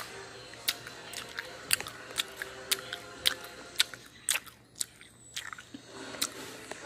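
A string of sharp, irregular clicks and crackles, roughly two a second, over a faint steady background.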